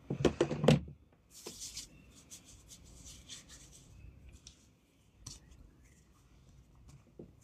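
Handling noise close to the microphone: a few loud knocks at the start, then a few seconds of rubbing and rustling, with single clicks later on.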